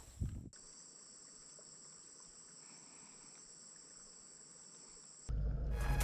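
Faint, steady high-pitched drone of insects chirping, cut off sharply about five seconds in.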